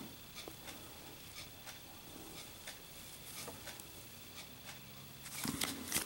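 Faint, irregular light ticks and rubbing from gloved hands handling a brass Zippo Armor lighter. Louder metal handling noises start about five seconds in.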